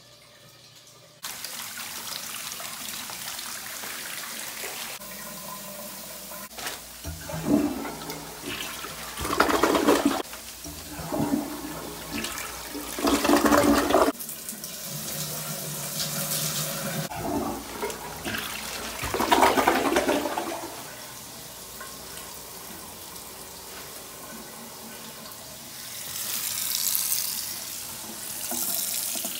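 A toilet flushing, with water running and draining freely through a bathroom drain that has just been unblocked. The rushing comes in several loud surges over a steady hiss.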